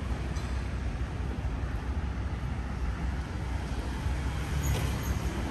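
Rainy street ambience: a steady low rumble with a hiss of rain above it, no single sound standing out.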